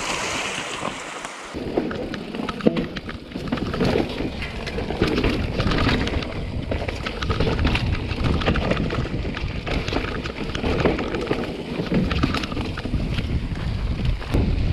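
Mountain bike riding over rough ground: wind buffeting the microphone, with the bike rattling and knocking all through.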